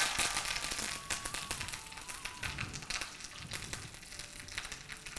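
Fresh curry leaves sizzling and crackling in hot coconut oil with mustard seeds and dals in a small pan: a South Indian tempering (thalipu) being fried. The spatter is loudest right as the leaves go in and settles to a steadier crackle.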